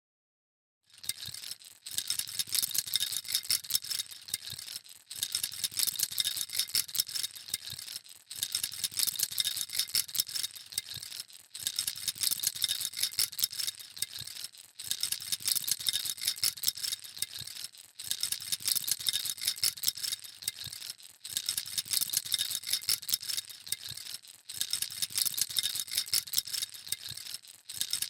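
Baby rattle shaken in dense, high-pitched rattling phrases of about three seconds each, with brief pauses between them, starting about a second in.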